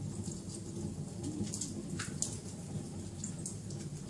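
Wood fire burning: a steady low rumble with scattered sharp crackles and pops, one louder pop about two seconds in.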